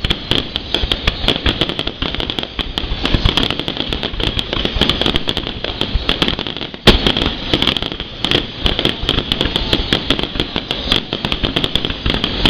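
Fireworks going off in a rapid, continuous stream of pops and crackles, with one loud bang about seven seconds in.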